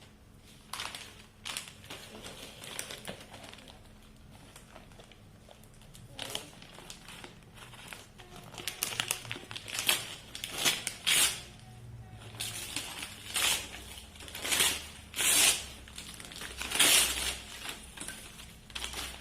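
Gift wrapping being crumpled and torn open in a series of short rustling bursts, louder and more frequent in the second half.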